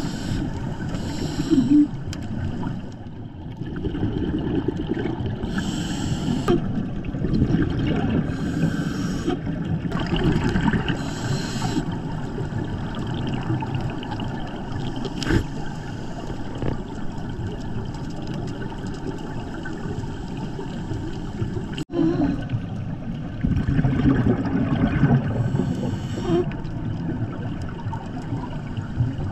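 Scuba regulator breathing heard underwater: a steady low rumble with bursts of exhaled bubbles every few seconds. The sound briefly cuts out about two-thirds of the way through.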